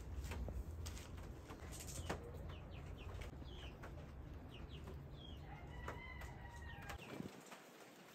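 Quiet outdoor bird chirping: many short, quick chirps, and one longer call held at a steady pitch about two-thirds of the way through.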